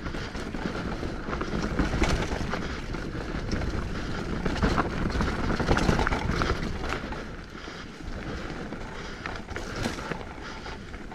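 Hardtail mountain bike rolling fast down rough singletrack: a steady rush of tyre noise with irregular rattles and knocks from the bike over rocks and bumps.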